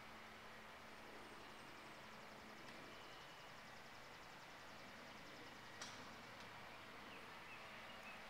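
Near silence: faint outdoor ambience, with one soft tick about six seconds in.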